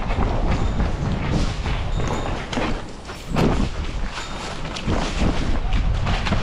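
Running footsteps, a quick uneven patter of thuds over a heavy low rumble, with a brief lull about three seconds in.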